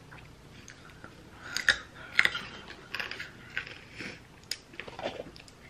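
A person chewing raw carrot pieces: irregular crisp crunches, loudest about one and a half to two seconds in.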